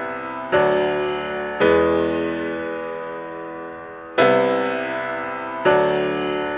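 Slow intro music on piano: four sustained chords struck one after another, each ringing on and slowly fading before the next.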